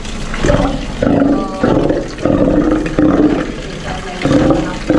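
A Steller sea lion roaring in a run of about six short, pitched calls, each about half a second long, with a pause shortly before the last one.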